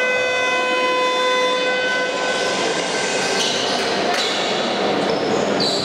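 Basketball game buzzer sounding one steady electronic tone that cuts off about two seconds in, over the noise of the gym.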